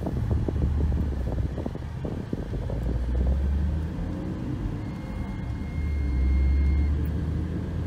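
Road and engine rumble inside a moving car, swelling a few times. A faint, thin high whine comes in for a couple of seconds past the middle.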